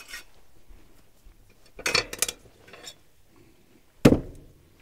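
Small hard objects clinking and clattering as they are set down on a stone slab: a few clinks about two seconds in and one sharper knock near the end.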